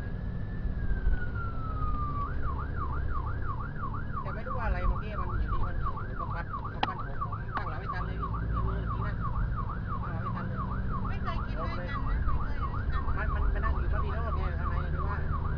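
Emergency vehicle siren: a slow wail that rises and falls once, then switches about two seconds in to a fast yelp of about three sweeps a second. A vehicle engine runs underneath.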